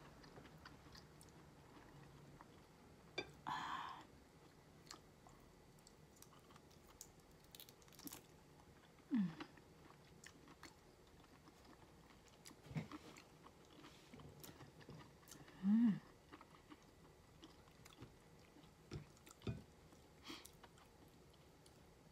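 Faint chewing of raw shrimp, with small clicks and crackles from fingers pulling the shrimp apart, and a few brief low murmurs.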